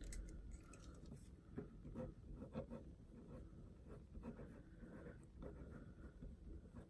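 Mechanical pencil writing on paper: faint, irregular scratching strokes with small taps of the tip.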